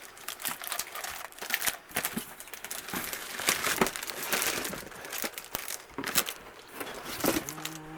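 Packaging crinkling and rustling in irregular bursts as unboxed merchandise is handled and unwrapped.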